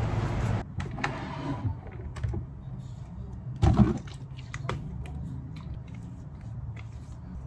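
Small clicks and taps of a jar of face cream being opened and handled on a wooden desk, with one louder thump a little past halfway, over a low room hum.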